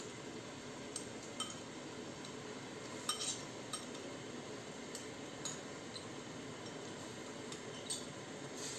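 Lentils, rice and tomato purée cooking in an open aluminium pressure cooker: a steady low bubbling hiss from the pot on the heat, with a few scattered light clinks.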